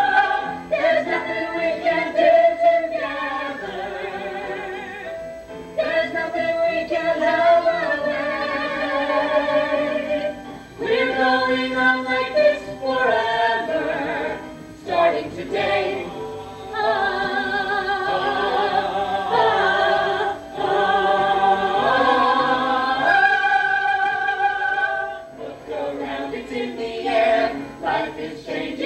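Musical theatre cast singing an ensemble number, several voices in harmony, with long held notes in the second half.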